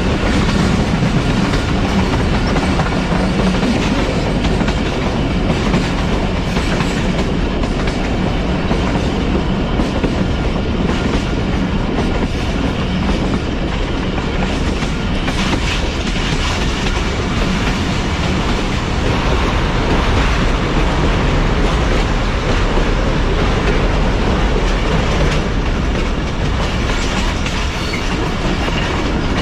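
Passenger train running along the track: a steady, loud rumble of the coach with the wheels clattering on the rails.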